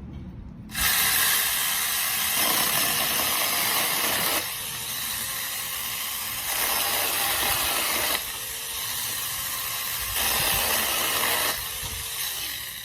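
Small battery-powered mini chainsaw running: a steady, even hiss of the chain with a faint motor whine. It starts about a second in and alternates between louder and quieter stretches every couple of seconds.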